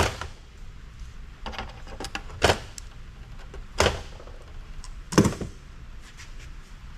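Socket-mounted ICs being pulled off an amplifier circuit board and set down. Three sharp clicks come about one and a half seconds apart, with a few lighter ticks before the first.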